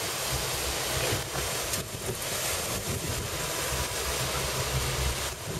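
Wind on the microphone and water rushing in the wake of a moving boat, over the low steady hum of its Suzuki 150 outboard motors.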